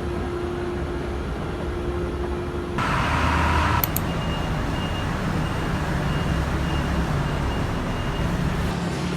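Steady rumble of a moving vehicle heard from inside. About three seconds in a louder rush of noise comes in, followed by a faint high beep repeating evenly for several seconds.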